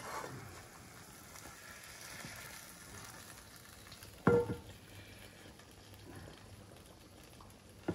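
Hot fat sizzling faintly in the frying pan that a roasted turbot is being lifted out of. About four seconds in there is a sharp clink with a short ring, and another near the end, as the fish slice touches the metal serving dish.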